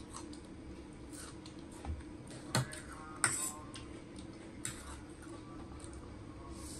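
Metal fork clicking and scraping against a plate as noodles are twirled up, with a few sharp clinks about two and a half and three and a half seconds in, over quiet chewing and a steady low hum.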